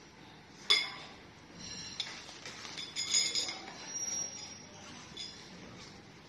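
Metal frame tubes of a baby playard clinking and tapping against one another as they are handled, with one sharp ringing clink about a second in and several lighter clinks after it.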